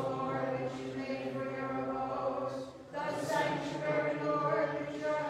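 Voices singing Byzantine liturgical chant in long held notes, two phrases with a short break about three seconds in.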